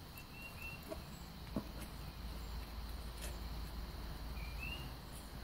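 Very young kittens scrambling over each other in a towel-lined cardboard box: soft scuffling with a few light knocks, the loudest about a second and a half in, and two faint high squeaks, one near the start and one near the end.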